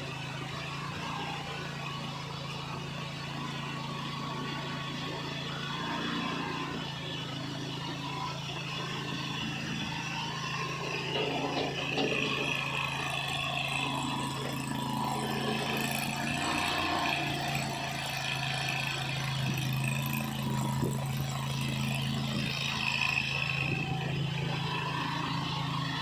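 Gasoline engine of a 23 hp mini skid steer loader running steadily, with more varied working noise layered over it from about six seconds in and getting louder around halfway.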